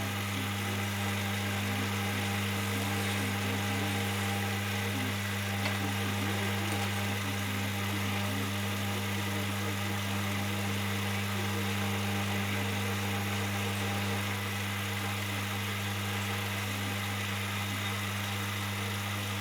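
A motor running steadily at one unchanging pitch, cutting off suddenly near the end.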